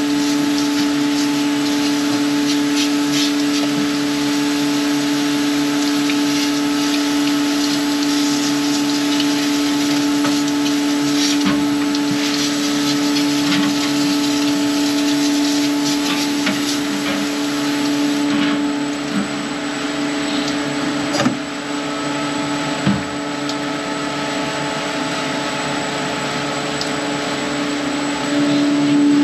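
A small pump or compressor runs with a steady hum under a hissing spray as a refrigerator condenser coil is washed out over a sink. The hiss eases a little about two-thirds of the way through, and there are a couple of knocks.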